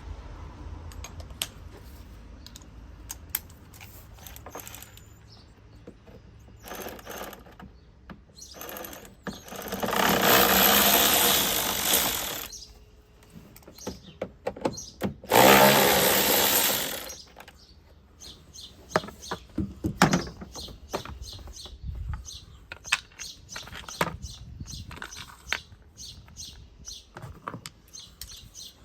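Cordless drill-driver running twice in short spurts of about two to three seconds each, backing out the two Torx T20 screws that hold a plastic engine-bay panel. Scattered clicks and knocks of tools and parts being handled come between and after the spurts.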